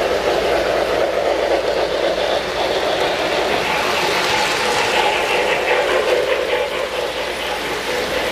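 Model train running along the track with a steady whirring rumble, and a fast run of light clicks about halfway through.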